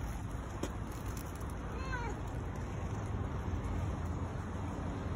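Domestic cat giving one short meow that rises and falls, about two seconds in, over a steady low background rumble.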